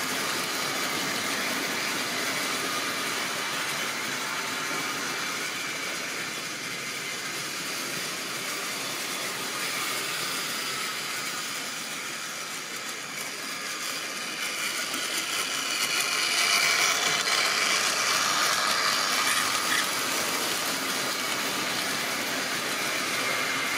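Tri-ang model train running on its track: the steady whirr of the locomotive's electric motor and the rumble of wheels on the rails. It gets a little quieter midway and louder again near the end.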